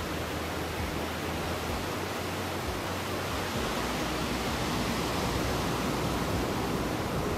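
Waves breaking and washing up a sandy beach: a steady rushing noise that gets a little louder about three and a half seconds in.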